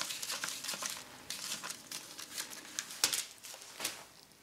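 Paper banknotes rustling and crinkling as cash is counted out by hand, with a sharp click about three seconds in.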